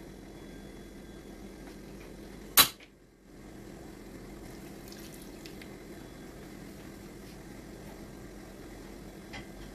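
Steady low room hum, broken about two and a half seconds in by one sharp, loud click and a half-second dropout to near silence, with a few faint light taps later.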